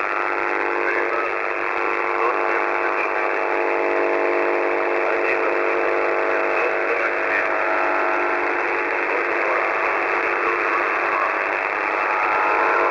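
Shortwave radio reception in single-sideband audio on The Pip's 6922 kHz channel: steady hiss cut off sharply below and above the voice band, with a buzz of several steady, evenly spaced tones that fades somewhat in the middle and grows stronger again near the end.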